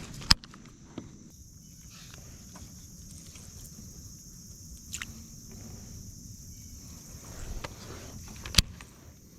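Insects shrilling steadily in the background, with a few sharp clicks and knocks; the loudest click comes shortly after the start and another near the end.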